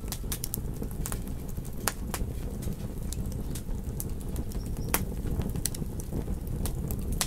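Campfire crackling: irregular sharp wood pops, several a second, over the steady low rumble of the burning fire.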